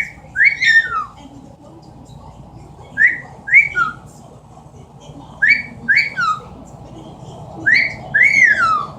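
Amazon parrot giving a wolf whistle four times, about every two and a half seconds. Each is a short rising note followed by a longer note that rises and then falls, the last one drawn out longest.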